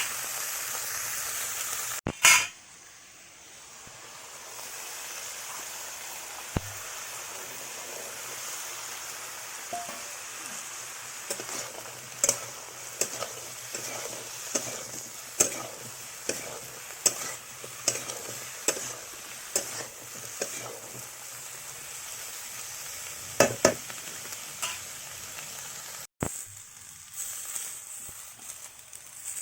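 Mixed vegetables sizzling in a kadai while a spatula stirs them, striking and scraping the pan in a run of sharp clicks about every half second to second. The sizzle breaks off abruptly twice, near the start and near the end.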